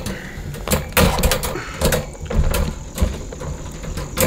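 Folding wire dog crate being unfolded and set up by hand: its metal wire panels rattle and clank irregularly, with several sharp knocks.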